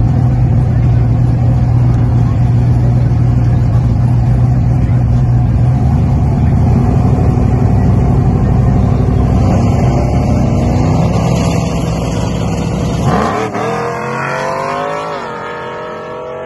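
Drag-race pickup truck's engine running loud and steady on the starting line, then launching about thirteen seconds in. The revs climb sharply, dip at a gear shift and climb again as the truck pulls away down the strip and fades.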